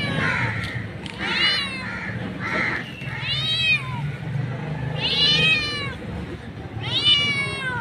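A tabby mother cat meowing repeatedly to call her kittens: about four long meows, each rising then falling in pitch, roughly two seconds apart.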